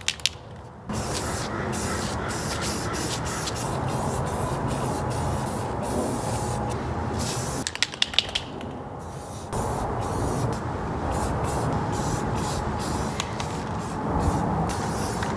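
Aerosol spray paint can hissing steadily as a second coat of black paint is sprayed on, in two long bursts with a short break about eight seconds in, where a few sharp clicks are heard.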